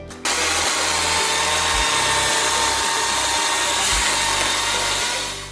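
Makita DUC353 twin-18 V cordless electric chainsaw running at full speed, a steady high whir with a faint constant whine. It cuts in abruptly just after the start and dies away near the end.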